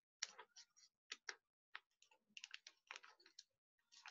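Faint crinkling of a sheet of newspaper being rolled diagonally around a skewer, heard as scattered small clicks and crackles.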